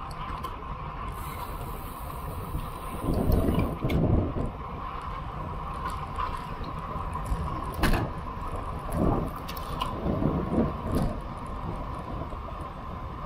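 Steady rush of wind and road noise on a bicycle-mounted action camera while riding, with several louder gusts buffeting the microphone, the strongest about three seconds in.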